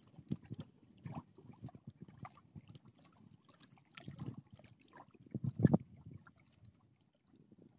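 Close rustling and knocking from a fishing rod, line and float rig being handled and cast, with small waves lapping at the shore. The loudest knocks come in a cluster about five and a half seconds in.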